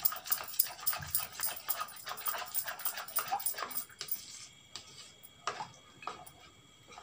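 A spoon stirring custard powder into milk in a small plastic bowl, clicking against the bowl rapidly, about four or five times a second, then only a few taps in the second half. The paste is being worked smooth to break up lumps.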